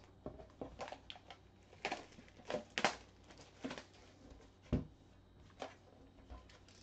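Clear plastic shrink wrap being peeled and crinkled off a cardboard trading-card box: a string of short, sharp crackles, with one dull thump a little under five seconds in.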